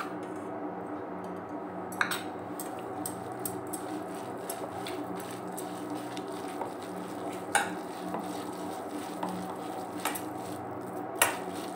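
Hand mixing grated bottle gourd and gram flour in a stainless steel bowl, with a few sharp clinks of metal against the bowl over a steady low hum.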